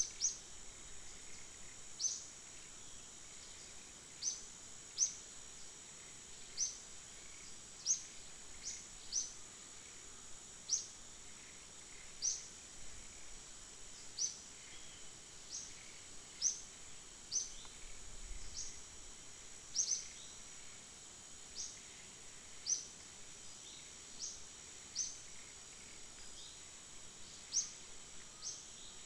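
Forest ambience: a steady, high-pitched insect drone, with short high bird chirps repeated every second or two, each a quick upward sweep.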